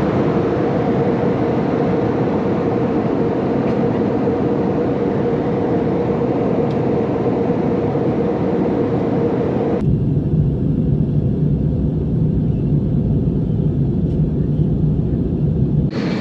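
Steady in-flight cabin noise of a jet airliner: a loud, even rush of engine and airflow noise with a steady hum. About ten seconds in it cuts abruptly to a duller, lower drone.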